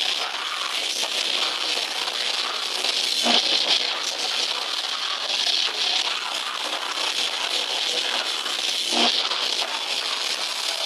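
Death metal band playing live, heard as a dense, distorted wash of guitars and cymbals with almost no bass.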